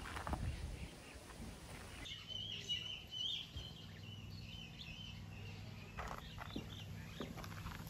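A bird calling with a wavering, warbling high call for about four seconds, over a low steady hum, with a few footsteps near the end.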